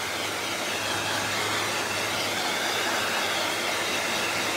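Hair dryer blowing steadily: a constant rushing air noise with a low motor hum underneath.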